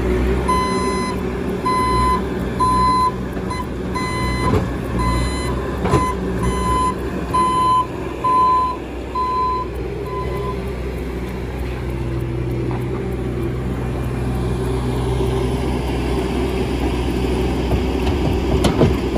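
Bobcat skid-steer loader's backup alarm beeping about once a second over its running diesel engine as it reverses with a loaded bucket, stopping about ten seconds in. The engine keeps running, and near the end topsoil starts pouring from the bucket into a wooden-sided dump trailer.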